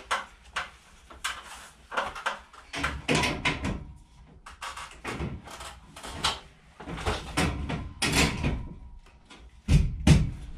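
Steel C-channel of an overhead garage storage rack knocking and clattering against the ceiling-mounted brackets as it is lifted and slotted into place: a run of irregular knocks, with two heavy thumps near the end.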